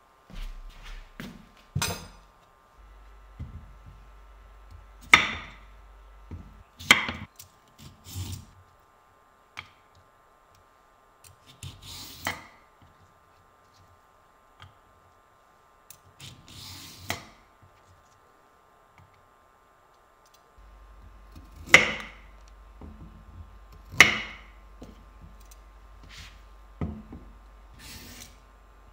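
Irregular knocks and clunks of objects being handled and set down, some louder than others, with quiet gaps between them.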